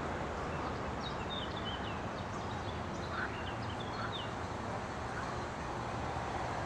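Park ambience: a small bird gives quick, high chirps for a few seconds, starting about a second in, over a steady low background rumble.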